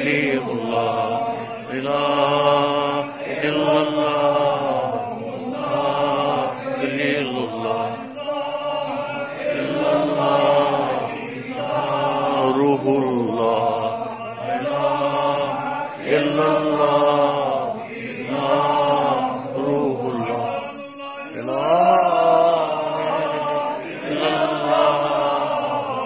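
A man's voice chanting an Islamic recitation in long, held, melodic phrases, with a short pause for breath late on.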